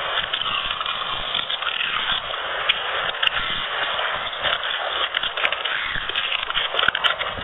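Close-up crunching and chewing of crispy chicharon bulaklak (deep-fried pork intestine): a dense run of crackling crunches with frequent sharp snaps.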